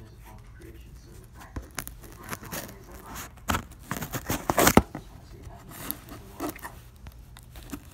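Cardboard shipping box being opened by hand: tape and cardboard tearing and scraping in irregular bursts, loudest about halfway through.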